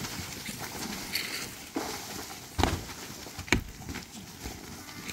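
A long-handled digging tool striking and scraping the packed earth and rubble of a mud-and-timber roof being demolished, with two hard knocks about a second apart near the middle.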